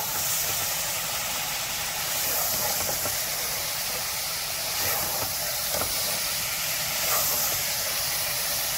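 Beef pieces and ground spices sizzling steadily in hot oil in a pan as they are stir-fried (bhuna) once the meat's liquid has dried off, with a spoon scraping through them a few times.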